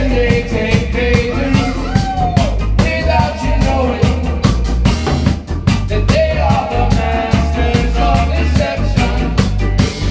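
Live reggae band playing: busy drum kit and a heavy bass line, with a wavering melody line over them.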